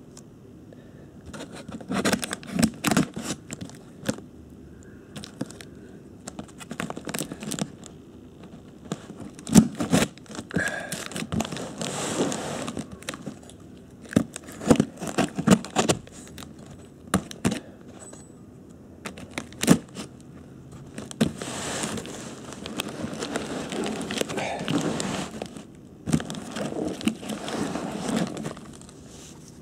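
A knife slicing through clear packing tape on a cardboard box, with tape tearing and crackling in several rasping stretches. The box knocks and scrapes in between as it is handled and turned over.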